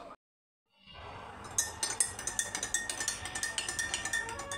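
A spoon stirring tea in a mug, clinking rapidly and repeatedly against the mug's sides, starting about a second in.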